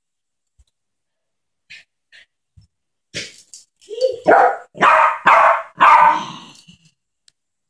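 Small Yorkshire terrier barking: a short sharp yap about three seconds in, then four loud barks in quick succession, about half a second apart.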